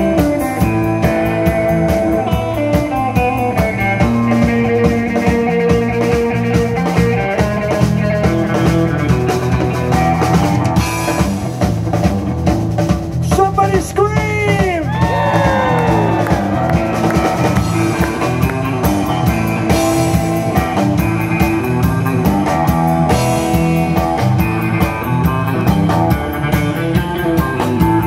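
Live rock band playing: electric guitar over electric bass and a drum kit. About halfway through, a note bends up and swoops down in pitch.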